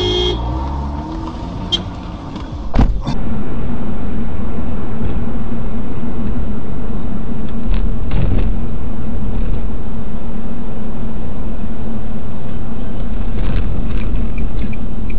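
Steady road and engine noise heard from inside a car driving at speed on a highway, recorded by a dashboard camera, with a constant low drone. About three seconds in it cuts in abruptly and much louder, replacing quieter city traffic sound.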